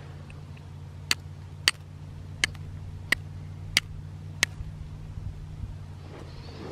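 Six sharp strikes, about one every two-thirds of a second, of a fire-starting striker throwing sparks, typical of steel struck against flint, over a steady low hum.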